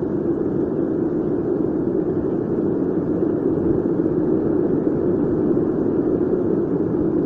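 Waterfall water falling and rushing steadily close by, a loud, deep, even rush that does not change.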